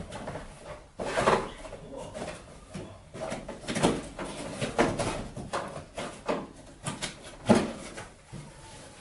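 Items being picked up and set down on a table: irregular knocks and clatters with short rustles between them, the loudest knock about seven and a half seconds in.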